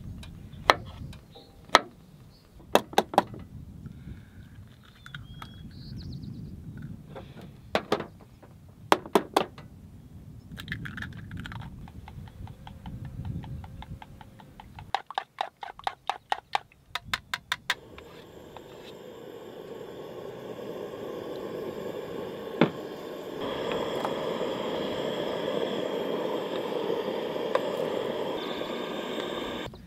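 A series of sharp clicks, clinks and knocks, some ringing briefly, then a steady hiss that builds over several seconds and holds before cutting off suddenly near the end.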